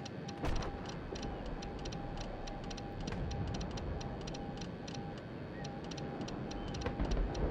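Morse code being sent: a single steady tone keyed on and off in a string of beeps, with a fast, even ticking underneath. A knock about half a second in and a low rumble near the end.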